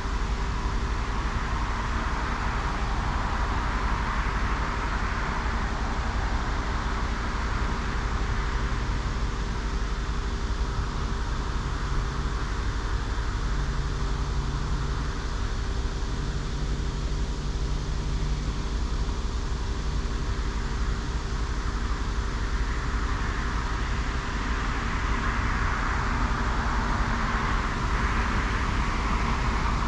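Highway traffic: vehicles passing on US-84, their tyre noise swelling as they go by near the start and again in the last several seconds. A steady low hum runs underneath.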